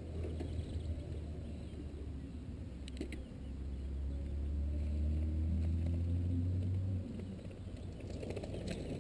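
Wind buffeting an outdoor microphone as a steady low rumble that eases about seven seconds in, with faint birdsong. Mountain bikes pass on the grass track near the start and near the end, with a few short clicks.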